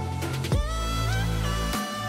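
Background music with deep bass and held melodic notes, changing to a new chord about half a second in.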